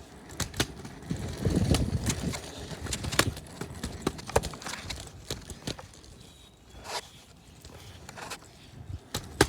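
Scooter wheels rolling over bumpy pavement, with irregular clacks and knocks as they hit cracks and a low rumble about a second in.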